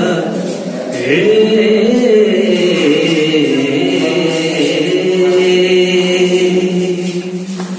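A man singing solo in long, drawn-out notes that slide slowly in pitch, rising about a second in and sinking through the middle, then one low note held steady for nearly three seconds that stops shortly before the end.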